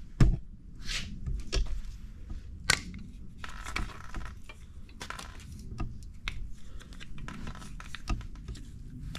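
Workshop handling noise around a bare engine block and crankshaft. A sharp knock comes just after the start and another sharp click near three seconds in, followed by scattered clicks and rubbing.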